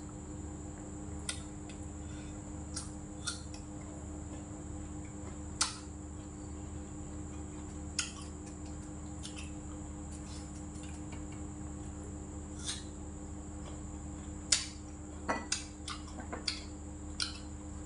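Scattered light clinks and taps of ceramic bowls and utensils as food is picked from the dishes by hand, a little busier near the end, over a steady background hum.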